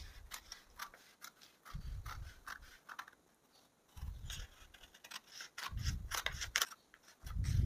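Scissors snipping through blouse fabric, a run of short sharp cuts as a back sleeve piece is cut out along its marked line. Dull low bumps every second or two are the loudest sounds.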